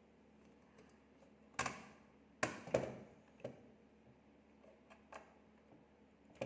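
Light clicks and knocks of small hard parts or tools being handled and set down, about half a dozen, most of them bunched together in the first half.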